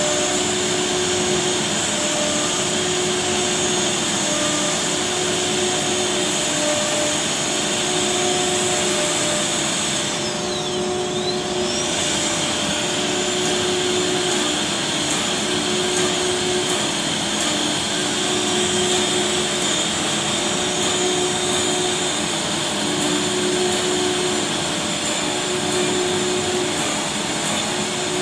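Four-spindle CNC router with air-cooled spindles machining a board, with its dust extraction running: a steady high whine over rushing air noise. A lower hum switches on and off every second or two. About ten seconds in, the whine briefly drops in pitch and climbs back.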